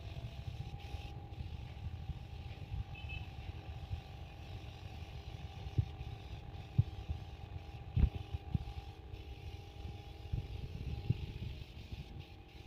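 Workshop noise: a steady low rumble with a faint steady tone, and a scattering of sharp knocks, several of them between about six and eleven seconds in.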